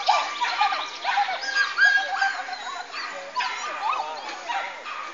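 Dog barking repeatedly in short barks, several a second.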